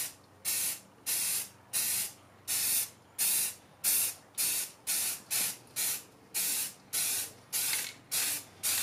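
Aerosol spray can hissing in short bursts, about two a second, as grey paint is sprayed in quick passes over a car body panel.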